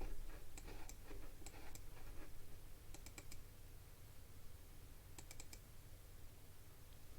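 Quick clicks from a computer mouse and keyboard, in small bursts of three or four, over a low steady hum.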